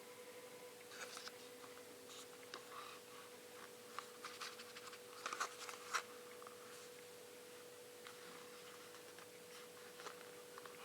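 Faint handling sounds of a smartphone and its packaging: light taps, scratches and small clicks, coming thickest in a cluster around the middle, over a faint steady hum.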